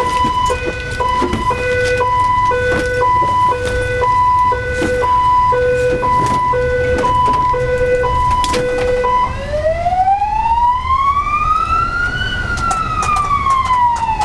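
Ambulance siren heard from inside the moving ambulance: a steady on-off beeping tone that switches about nine seconds in to a slow wail, rising and then falling in pitch. Under it runs the vehicle's steady engine and road rumble, with scattered knocks.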